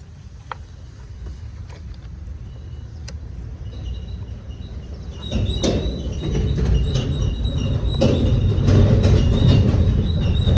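Maruti Suzuki Dzire's four-cylinder petrol engine running rough with a dead cylinder 2 misfire, vibrating unevenly. It gets much louder about halfway through, with clicking and a high whine over the low running.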